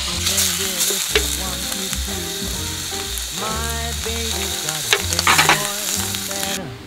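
Meat sizzling as it fries on a hot cooking surface, with a few sharp pops and spits. The sizzle stops abruptly near the end.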